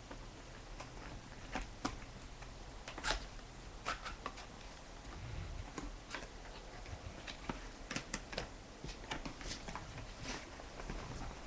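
Cardboard packaging being opened by hand: irregular rustles, scrapes and light taps of flaps and packing material being handled.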